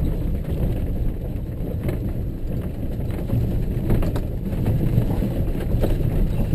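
4x4 driving slowly over a rough, rocky dirt track: a steady low rumble of engine and tyres on gravel, with a few knocks and rattles from the bumps.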